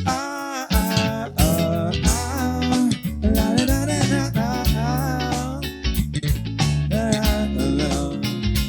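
A song with a singing voice over guitar and bass guitar, with a steady beat.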